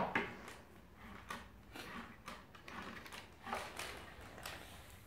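Faint, scattered clicks and light knocks of plastic toy tool pieces being handled and fitted together.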